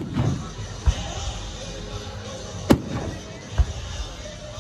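Aerial fireworks bursting over music: a sharp crack right at the start and another a little past halfway, with duller low booms in between.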